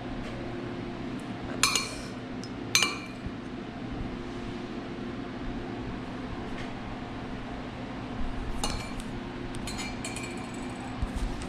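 Metal chopsticks clinking against a ceramic dish: two sharp ringing clinks about a second apart, then a handful of lighter clinks near the end.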